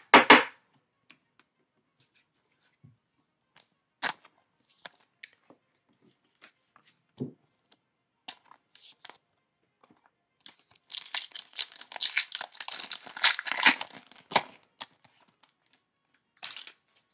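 Foil trading-card pack being torn open and its wrapper crinkled, a dense crackling for about four seconds past the middle. Scattered light clicks and taps of cards being handled come before and after it.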